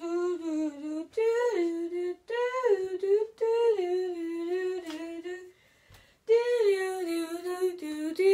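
A voice humming a wordless tune of long notes that slide up and down, in short phrases, with a brief pause a little past the middle.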